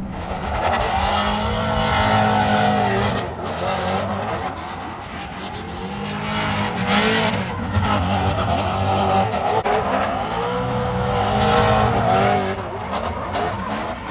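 Drift cars sliding sideways on asphalt: their engines rev up and down in repeated swells while the tyres squeal and skid.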